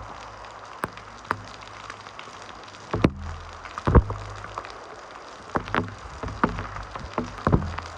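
Heavy typhoon rain, a steady hiss with large drops striking a hard surface at irregular moments, the loudest hits about three and four seconds in, over an intermittent low rumble.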